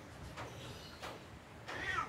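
Tabby cat giving one short, falling mew near the end, over a few faint soft ticks.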